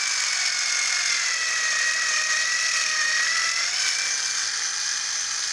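Old Black & Decker electric screwdriver's small DC motor and gearbox running with a loud, steady high whine. Its pitch sags a little in the middle as the output gear is held back by hand, a load that pushes the motor's current draw up to about 5 amps.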